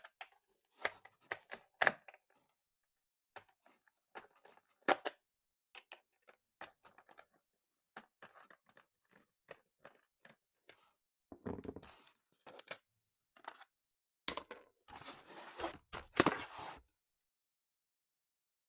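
Toy packaging being handled: scattered light clicks and taps, then stretches of packaging crinkling and rustling about two thirds of the way in and again near the end.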